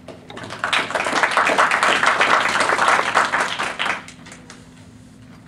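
Small audience applauding: many separate hand claps that build quickly and die away about four seconds in.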